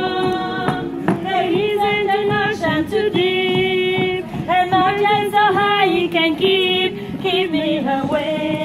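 A group of mostly women's voices singing together as a choir, in a run of long held notes.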